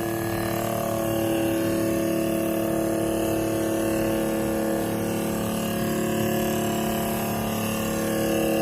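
Panasonic NR-BW414SS refrigerator's fan making a loud, steady droning hum with several held tones. The noise comes from the fan blades hitting ice that has built up around the fan, which should not happen.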